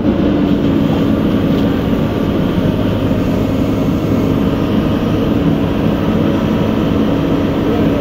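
JCB backhoe loader's diesel engine running steadily at high revs, working the hydraulics to lift a heavy log with the backhoe arm; the engine tone rises right at the start and then holds.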